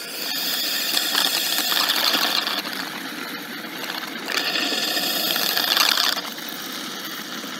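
Water poured from a jug into an open PVC condensate drain pipe, splashing and gurgling down the muddy, partly clogged line, in two louder spells.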